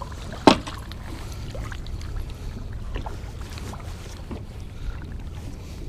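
Steady low rumble of wind and water against a boat on open water, with one sharp knock about half a second in and a few fainter clicks and taps after it.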